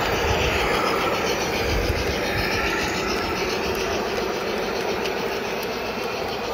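G scale model freight train rolling past close by, its wheels running steadily on the track.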